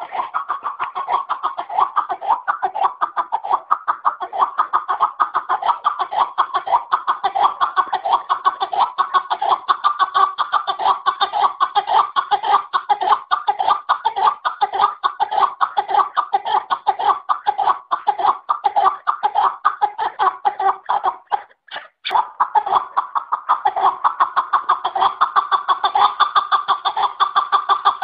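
Chukar partridge calling: a long, rapid cackling run of repeated 'chuck' notes, with a brief break about two-thirds of the way through.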